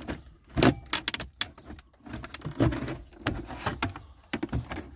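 Hard plastic centre-console trim bezel of a Ford Explorer being lifted and worked loose by hand: a series of sharp plastic clicks and knocks at irregular intervals, with light rattling between them.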